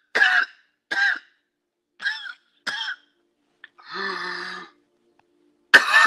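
A person coughing and clearing their throat in a series of short bursts, with one longer, steady-pitched vocal sound about four seconds in.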